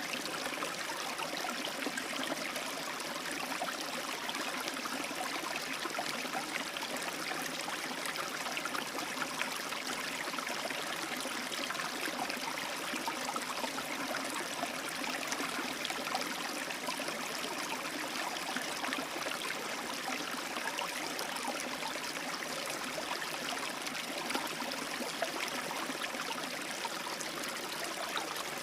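Small rapid of a stream: water running and splashing steadily over rocks, a continuous rushing and babbling without pauses.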